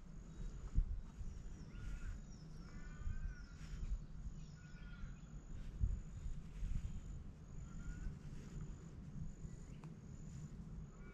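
Quiet outdoor ambience: a steady high insect trill, a few short bird chirps, and a low rumble. A few soft knocks come from hands handling tackle, about a second in and again near the middle.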